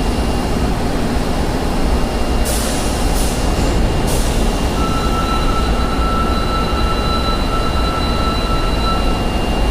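Osaka Metro 22 series subway train running, with a loud, steady rumble and a thin high whine throughout; a few short hisses come about three seconds in, and a second, stronger whine sets in about five seconds in and stops near the end. The car is one singled out for an abnormal running noise.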